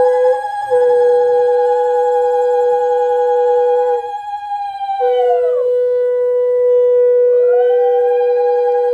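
Conch shells (shankha) blown in long held notes, two steady tones sounding together. The lower tone breaks off briefly about four seconds in, and the upper tone drops down to meet it a little later, then rises back near the end. This is ritual conch blowing marking the auspicious moment of the Bhai Phonta blessing.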